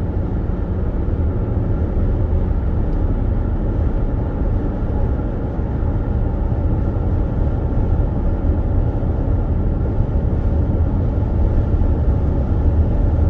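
Steady low rumble of tyre, engine and wind noise inside a car cruising at freeway speed.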